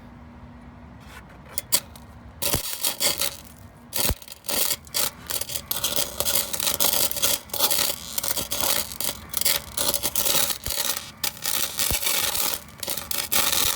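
Electric arc welding on a muffler: after a few clicks the arc strikes about two and a half seconds in. It then crackles and sputters loudly and irregularly, with brief breaks where the arc drops out.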